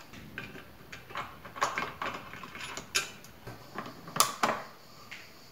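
Steel angle legs of a table-saw stand clanking and rattling as they are handled and fitted against the saw's body: a string of irregular knocks and clicks, the sharpest about three seconds in and the loudest about four seconds in.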